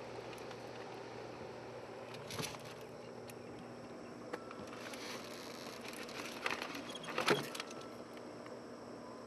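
Talon bomb-disposal robot's electric motors whirring faintly as its gripper arm pulls a car door open, with a short rattle a couple of seconds in and a louder cluster of rattles past the middle.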